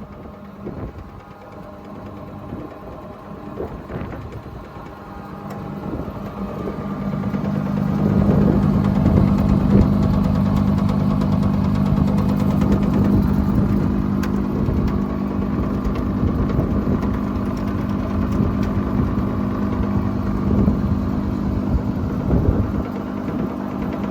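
Lindner T310 wood chipper/shredder with a 22 kW motor and pull-in rollers running and chewing through wood waste, a steady machine hum with frequent knocks and cracks as pieces are broken up. It comes under heavier load and grows louder about a third of the way in, then stays loud.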